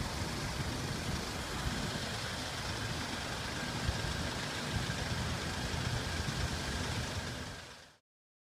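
Road traffic: car engines idling and running in a queue of traffic, a steady hum with a low rumble. It fades out to silence near the end.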